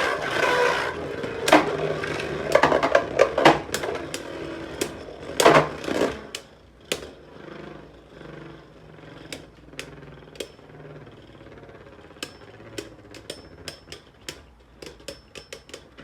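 Two Beyblade Burst spinning tops, Rage Longinus and Judgment Diabolos, battling in a plastic stadium. Rapid clashes and knocks for the first six seconds or so, then a quieter steady whir with scattered clicks as they keep spinning and touch now and then.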